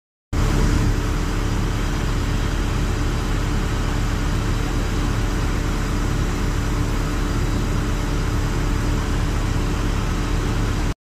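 Steady engine drone with a low hum and a rushing noise, typical of aircraft or apron vehicle engines running at an airport; it starts abruptly and cuts off abruptly just before the end.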